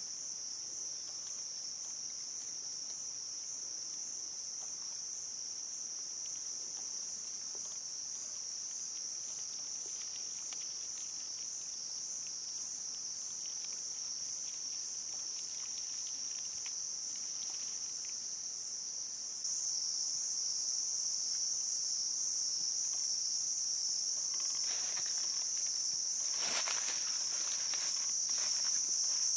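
Steady, high-pitched insect chorus droning on without a break, getting louder about two-thirds of the way through. Near the end, footsteps rustle through dry leaf litter.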